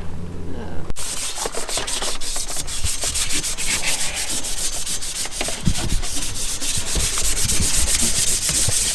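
Hand sanding: rapid back-and-forth rubbing strokes that run on steadily, beginning after an abrupt cut about a second in. Before the cut there is a brief steady low hum.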